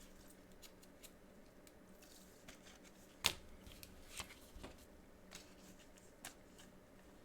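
Faint handling of trading cards and plastic card sleeves on a table: light rustling with a few sharp taps, the loudest about three seconds in.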